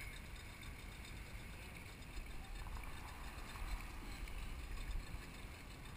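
Steady low rumble and hiss of wind and water around a small open boat at sea, with no distinct events.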